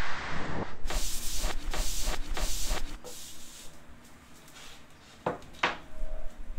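A plywood sheet rubbing and scraping as it is slid into position on a wooden workbench frame: a run of short scrapes, then quieter, with two sharp knocks about five seconds in.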